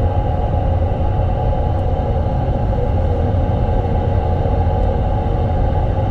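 Hyundai Ioniq 5 N heard from inside the cabin: a steady, loud rumble of road and drivetrain noise with a constant hum over it.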